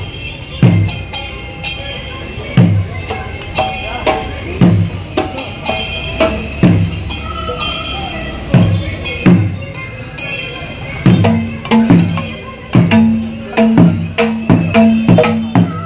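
Percussion ensemble: deep drum strokes that drop in pitch, at first about one a second, over ringing cymbals. About two-thirds of the way through the strokes come faster and a steady low tone joins in.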